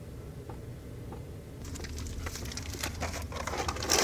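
Rustling, crinkling and small knocks of things being handled in a small enclosed space, busier from about a second and a half in and ending in a short, louder scrape or clatter. A low steady hum runs underneath.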